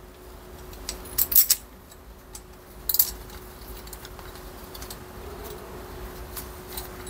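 Small metallic clicks and clinks as a steel cover plate and its fittings are handled and seated onto a Kawasaki ZX130's aluminium crankcase, with a cluster of sharp clinks about a second in and another at three seconds. A faint steady hum runs underneath.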